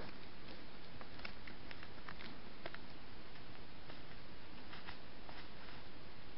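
Steady hiss of a trail camera's microphone, with scattered faint, irregular crackles and ticks, typical of a wild boar stepping through dry leaf litter as it moves off.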